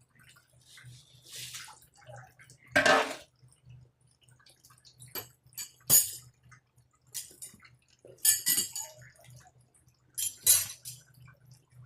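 Water splashing and dripping in short bursts, with a few sharp clicks and clinks, as the washing machine's drum and drain parts with their scale deposits are handled. The loudest splash is about three seconds in, and a sharp click comes about six seconds in. A faint low hum pulses steadily underneath.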